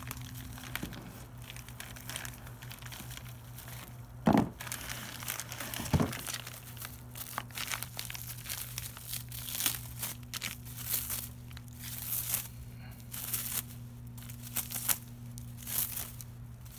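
Clear plastic wrapping crinkling and tearing as it is pulled off a new sway bar, in irregular rustling bursts. Two dull knocks about four and six seconds in.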